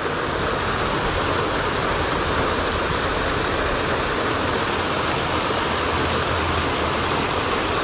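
Steady rush of water pouring over a spillway.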